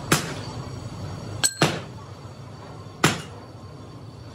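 A few sharp metal knocks, one with a brief ringing clink, over a steady low hum of workshop machinery in a sand-casting foundry.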